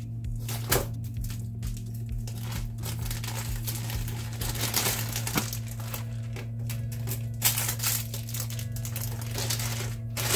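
Plastic packaging and white plastic tubing being handled, crinkling and rustling irregularly with a few sharper crackles, over a steady low hum.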